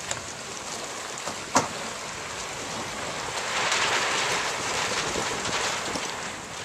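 Wind and lake water splashing around a boat, with a single sharp knock about a second and a half in and a louder rush of water past the middle.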